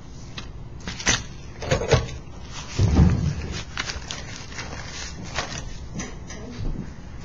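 A string of knocks and clicks from objects being handled, the loudest a dull thump about three seconds in.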